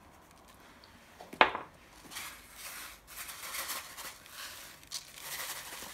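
A sharp knock about a second and a half in, then a bag of sesame seeds rustling and crinkling in irregular bursts as the seeds are shaken out onto the dough.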